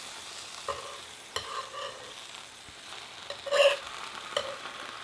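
Croissants with smoked turkey and cheese sizzling on a hot grill, with a few short knocks and scrapes of a knife against the grill surface, the loudest about three and a half seconds in.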